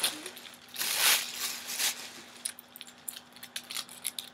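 Rustling as a bow-pendant necklace is handled, followed by a run of light clicks and clinks from its metal chain and pendant.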